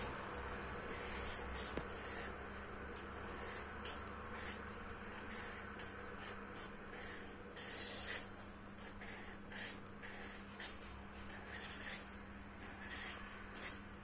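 Broad-tip marker strokes on a polystyrene foam lid: short scratchy swishes at irregular intervals, the longest and loudest about eight seconds in, over a steady low hum.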